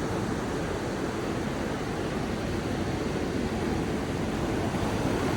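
Steady rushing outdoor noise of wind and surf, with no distinct events.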